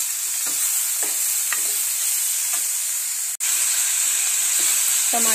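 Sliced bitter gourd, potato, onion and tomato sizzling in hot oil in a frying pan, sautéing with spices, with the scrape and tap of a metal spatula stirring them now and then. The sound cuts out for an instant a little past halfway, then the sizzling goes on.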